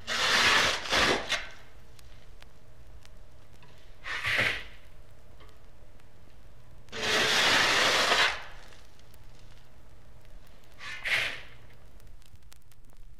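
A shovel scraping into sand and tossing it, four irregular strokes. The second and fourth are short, the third the longest. Faint hum and record crackle sit under the strokes.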